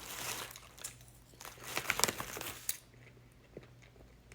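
Sunflower seeds being bitten, cracked and chewed, mixed with crinkling of the plastic seed bag; it goes quieter about three seconds in, with only a few small clicks after.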